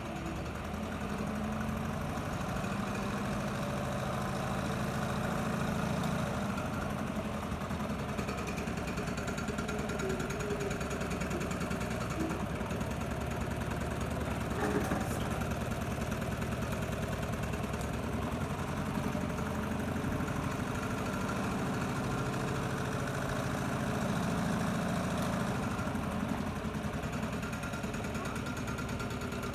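Homemade tin-can Stirling engine running steadily, its wire crankshaft and flywheel turning a small generator, making a fast, even mechanical rattle over a low hum. A single sharp tap about halfway through.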